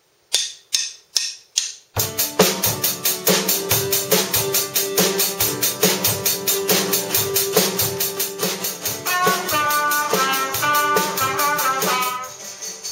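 Four sharp clicks about 0.4 s apart, a count-in, then a Tama drum kit and an acoustic guitar start playing together on a steady beat. A higher melody line joins about nine seconds in, and the music drops quieter near the end.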